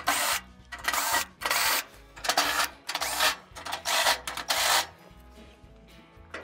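Cordless drill driving a 5 mm socket, run in a string of short bursts to unscrew the burner flame spreaders on a gas range cooktop. The bursts come about seven or eight times over the first five seconds, then stop.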